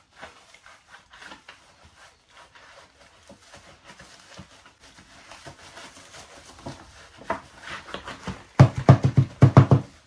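Dry sphagnum moss and a clear plastic moss pole being handled, with faint rustling and crackling. Near the end comes a loud, rapid run of creaks about a second and a half long.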